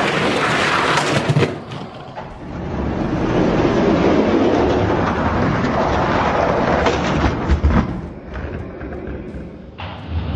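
Die-cast toy monster trucks rolling down a plastic Hot Wheels track, a continuous rolling rumble. A few sharp clacks come about seven to eight seconds in.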